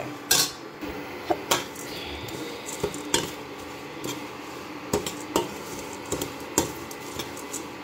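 Steel spatula scraping and knocking against a steel kadhai while stirring poha (flattened rice) as it roasts on low heat, in irregular strokes.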